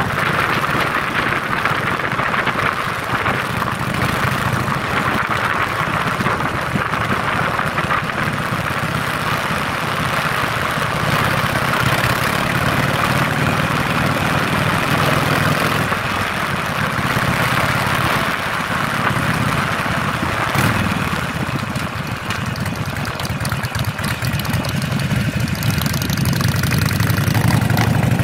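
Harley-Davidson Sportster's V-twin engine running steadily while riding, heard from the bike itself with wind rushing over the microphone; the low engine note grows louder near the end.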